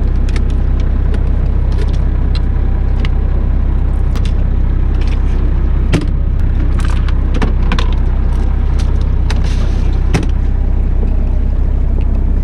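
Fishing boat's engine running with a steady low hum, under scattered clicks and knocks of fishing tackle being handled, with sharper knocks about six and ten seconds in.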